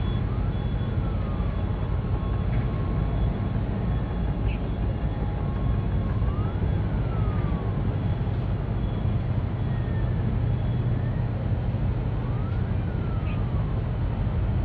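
Low steady rumble of the container ship CMA CGM Mississippi passing close by under way. Over it, a faint tone rises then falls three times, about six seconds apart.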